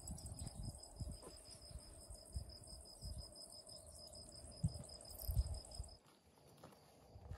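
Insects chirping in a fast, even pulse, crickets or cicadas in dry summer grass, over low, uneven rumbling. The chirping stops abruptly about six seconds in.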